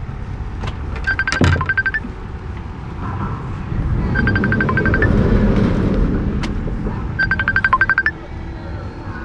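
Phone ringtone for an incoming call: a short phrase of rapid, evenly repeated high notes, under a second long, sounding three times about three seconds apart. A low rumble swells between the second and third rings.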